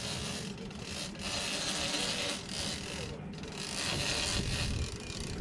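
Big-game fishing reel ratcheting in uneven bursts of half a second to two seconds as the line works under load from a hooked broadbill swordfish. A sharp knock comes right at the end.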